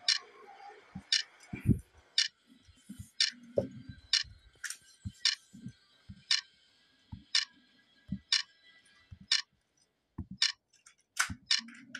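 Tally clicks from a phone click-counter app, one for each tap on the plus button, about one a second, with soft low thumps between them; near the end the clicks come more often and unevenly.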